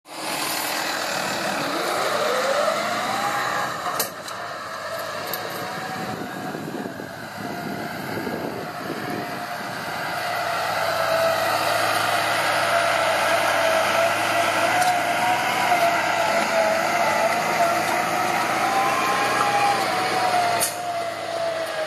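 Valtra T160 tractor's diesel engine working under load, pulling a Kühne KRT-6 short disc harrow through tilled soil. Its whine rises in pitch over the first few seconds, then holds steady with a slight waver. There are sharp clicks about four seconds in and near the end.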